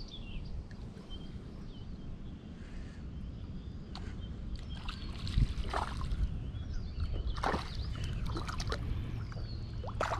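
Water splashing at the lake's edge, a few sharp splashes in the second half, over a steady low rumble of wind, with small birds chirping near the start.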